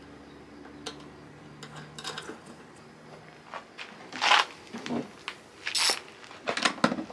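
Metal hardware being handled on a bus bar: light clicks and clinks of cable lugs and nuts going onto the studs, with several louder scraping rustles in the second half.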